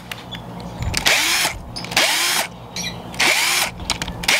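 Cordless power driver backing out the bonnet screws of a plastic irrigation valve, in short runs of about half a second, each spinning up and winding down. There are three runs, and a fourth starts at the end.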